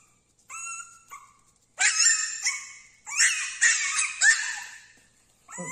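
Tiny 50-day-old Taiwanese native dog puppy barking in high-pitched yaps: two faint yaps, then a run of loud ones from about two seconds in, and after a short lull another yap near the end.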